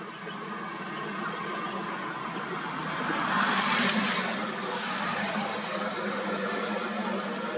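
A vehicle engine running steadily and growing louder, with a rushing swell loudest about three to four seconds in.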